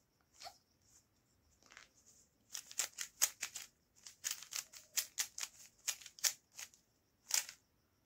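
Plastic Rubik's cube being twisted by hand: the clicking of its layers turning, a few separate turns at first, then quick runs of several turns a second from about two and a half seconds in.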